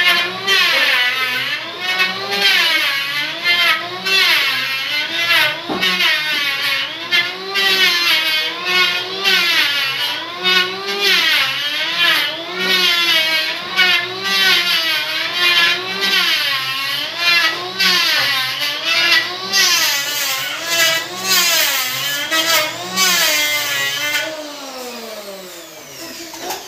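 Electric hand planer running while cutting along a wooden board, its motor whine wavering up and down in pitch as the blades bite and ease off. Near the end it is switched off and the whine slides down as the motor winds down.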